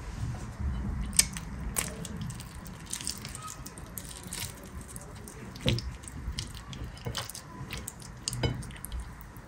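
Fingers tearing saucy cooked chicken apart and off the bone: squelching, sticky pulling with scattered sharp little clicks and cracks, a few of them louder, about a second in and near the end.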